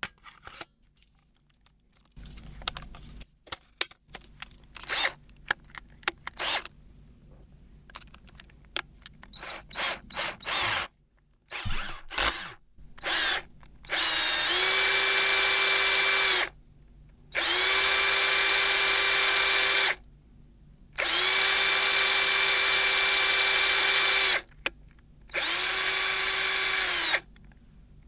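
Power drill: clicks and handling noises with a few short trigger blips, then about halfway in four steady runs of a few seconds each. Each run spins up to a steady high whine and winds down when the trigger is released.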